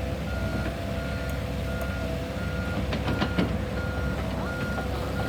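Backup alarm of a heavy construction machine beeping at an even pace, about once every 0.7 s, over the steady running of its diesel engine. A few sharp metallic knocks come a little past the middle.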